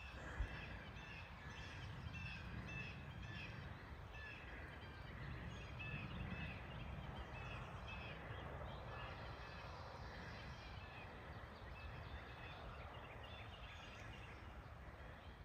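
A bird calling over and over in short, high notes, about two a second, faint against a low outdoor hiss.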